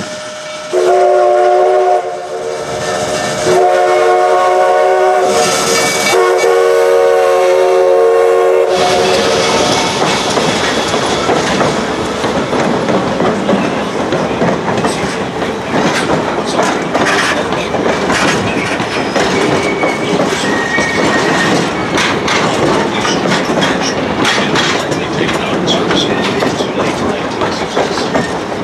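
Steam locomotive whistle sounding a short blast and then a long blast of about five seconds as the train approaches. The locomotive then passes close by, followed by passenger coaches rolling past with steady wheel clatter and clicking over the rail joints.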